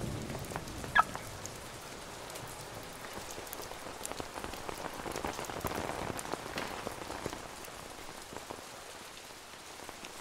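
Steady rain falling, with scattered drops ticking on hard surfaces. A short, high chirp-like sound stands out about a second in.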